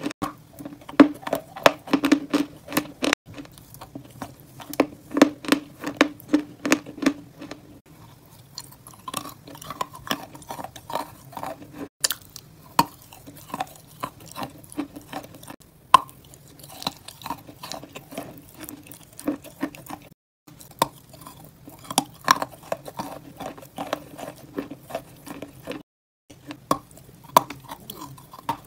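Close-up ASMR chewing and mouth sounds: sharp crackling clicks of biting and chewing a crumbly dessert, a few per second, broken twice by brief dropouts.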